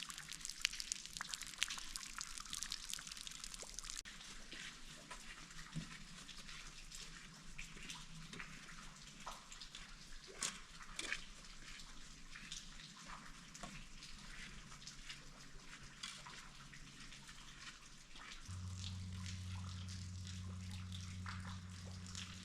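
Water dripping and trickling irregularly: the thin remains of a seasonal waterfall falling into the cave. A low steady hum comes in near the end.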